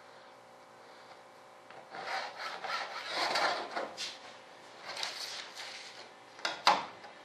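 Scratchy rubbing and scraping as a pencil, metal straightedge and fiberglass sheet are worked over on the bench, in several bouts, then two sharp knocks near the end, the second one loud.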